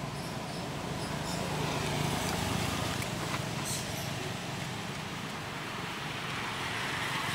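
Steady outdoor background noise: a low rumble with a hiss over it and a few faint ticks.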